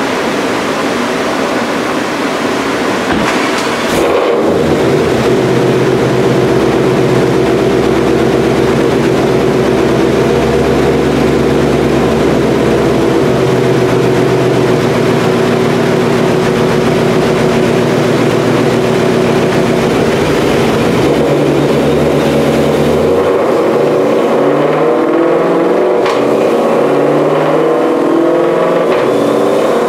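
2020 Shelby GT500's supercharged 5.2-litre V8 running through a Lethal Performance track exhaust while strapped on a chassis dyno. The engine holds a steady note that gets louder about four seconds in; over the last several seconds its pitch begins to shift and waver.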